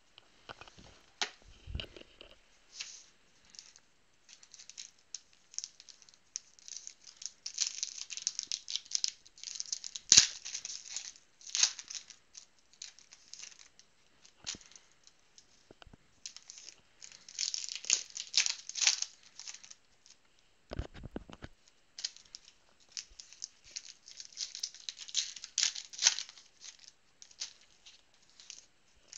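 Foil trading-card pack wrappers being torn open and crinkled, a dense crackly rustle with sharp ticks, broken by a few soft knocks.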